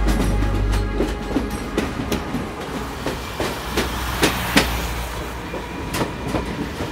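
Suburban electric train passing, its wheels clattering over the rail joints in an uneven run of sharp clicks over a steady rumble.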